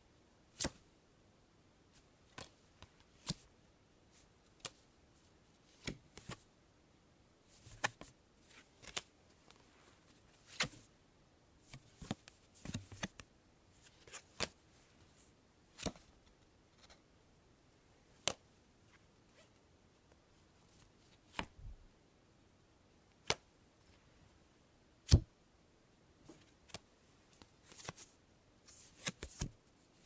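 Playing cards being drawn one at a time from a deck: short, sharp snaps and brief sliding flicks of card stock. They come at irregular intervals, about one every second or two, sometimes bunched in quick clusters.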